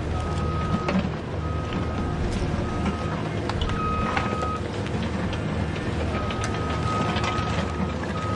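RC excavator working: a steady low hum of its motors, with scattered clicks and scrapes as the arm and bucket move, and a high electronic beep that comes on and off about six times, some beeps short and one held over a second.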